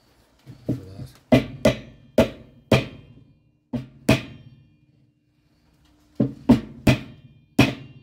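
A wooden block knocked down hard onto the top of a plastic washing-machine agitator, about a dozen sharp knocks in uneven bursts with a pause midway. The blows drive the agitator further down onto its worn drive shaft, which it was not fully seating on.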